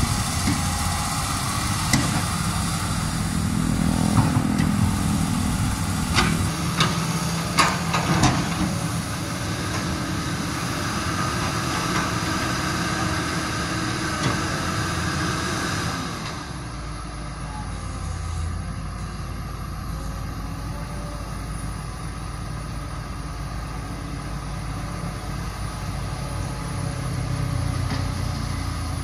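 Diesel engines of hydraulic excavators running as they dig a dirt pile, with a few sharp clanks about four to eight seconds in. Partway through, the sound changes to a lower, steadier engine drone.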